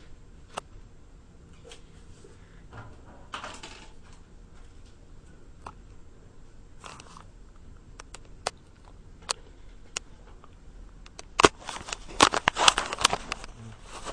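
Scattered small clicks and two brief rustles, then a flurry of sharp crackling clicks about eleven seconds in, like handling noise from things being touched or moved near the microphone.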